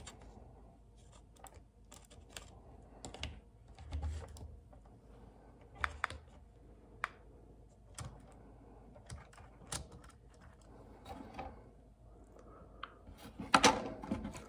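Scattered light clicks and taps of hands fitting a battery into a plastic HO-scale battery car (a gondola) and pressing it into place, with a cluster of louder clicks near the end.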